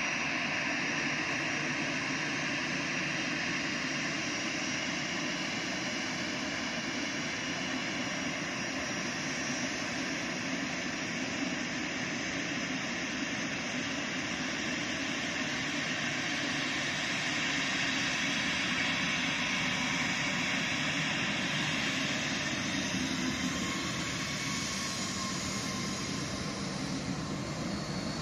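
Jet engines of an Edelweiss Air narrow-body airliner running steadily on the runway: an even rushing noise with a faint high whine that holds at the same level throughout.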